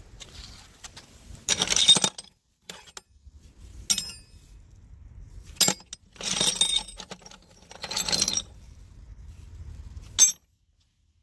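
Flat steel offcut discs and small cut steel pieces clinking and scraping against each other as a gloved hand rummages through a pile of them in a galvanized steel box. It comes in several short clattering bursts with a ringing edge, and there is one sharp clink near the end.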